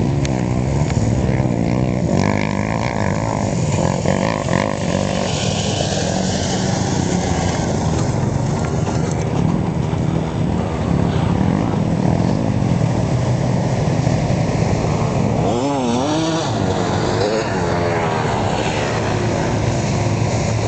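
A pickup truck's engine running hard as it drives through sand and mud. The revs rise and fall repeatedly about three-quarters of the way through.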